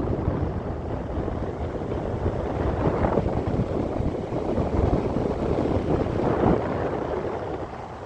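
Air blowing out of an LG window air conditioner's vent onto a microphone held up close: a loud, uneven rushing noise with gusts, easing off near the end.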